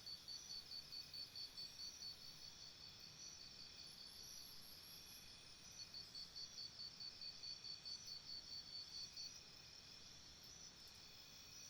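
Faint insect chorus: crickets chirping in even high-pitched pulses, about four or five a second, in two runs of a few seconds each over a steady high buzz of other insects.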